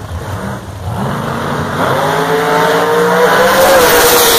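A drag racing car's engine revving hard at the strip, its pitch climbing over a couple of seconds and then easing slightly near the end.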